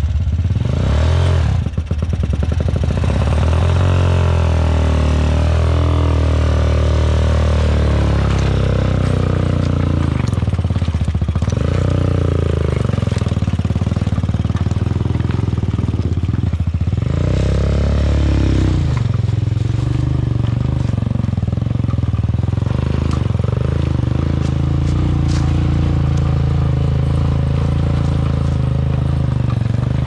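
Quad bike engine running as the ATV is ridden over loose riverbed stones, its pitch rising and falling several times as the throttle is opened and eased off.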